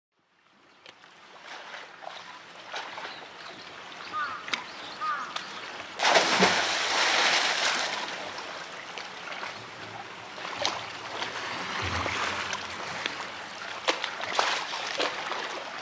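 Water at a sea lion pool: steady splashing and running water, with a louder burst of splashing for about two seconds around six seconds in, and scattered sharp drips.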